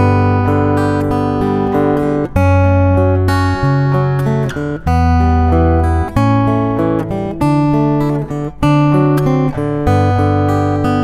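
Gusta GDX130C dreadnought acoustic-electric guitar, solid Sitka spruce top on a rosewood body, strummed in chords and heard through its Fishman Isys 301 pickup. The chords ring and change every second or two, each one opened by a crisp strum.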